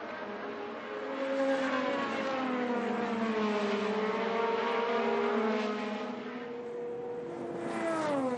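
IndyCar race car engines running at high revs, their pitch rising and falling, with a sharp drop in pitch just before the end.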